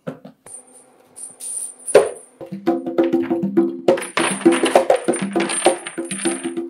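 Conga drum played by hand: a sharp slap about two seconds in, then a steady run of pitched hand strokes. From about four seconds in a bright jingling rattle plays along.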